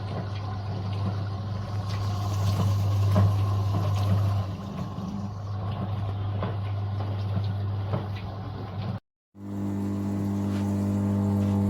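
Countertop mini dishwasher running: a steady motor hum under a noisy rush of washing water. Sound cuts out briefly about nine seconds in, then the steady pump hum returns.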